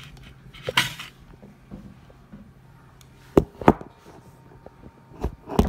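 Things being handled and set down on a hard countertop: a short scrape about a second in, then two quick pairs of sharp knocks.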